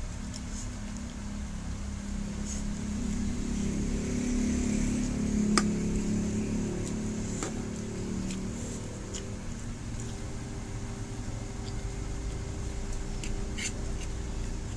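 Eating sounds: a fork and spoon clicking and scraping on a plastic plate, with a few sharp clicks, the loudest about halfway through. Under it runs a low mechanical hum that swells to its loudest in the middle and then fades.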